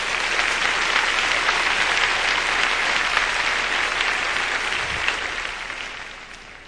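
Large congregation applauding: many hands clapping together in a dense, steady wash that dies away near the end.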